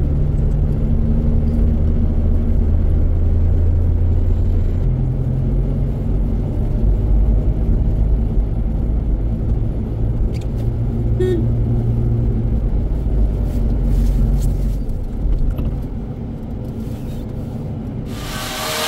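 Car engine and road noise heard from a moving vehicle, a steady low hum whose pitch shifts a few times as it drives. Near the end it cuts abruptly to a loud steady hiss.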